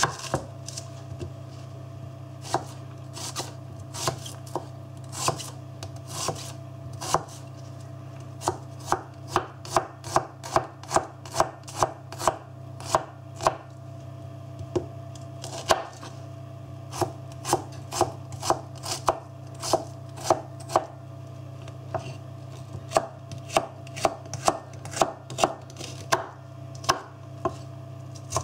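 A fixed-blade kitchen knife slicing an onion on a wooden cutting board: sharp knocks of the blade hitting the board, scattered at first, then in quick runs of about two a second. A steady low hum runs underneath.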